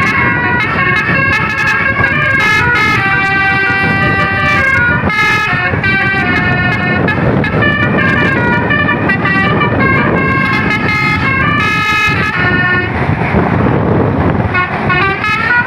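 A Basuri 'telolet' musical horn set on a tour bus plays a tune of held notes that step from pitch to pitch, over the bus's engine and road noise. The horn tones drop back briefly near the end, then start again.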